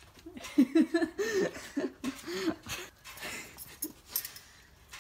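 A run of short rising-and-falling vocal sounds, then a set of keys jingling as they are fished out of a bag near the end.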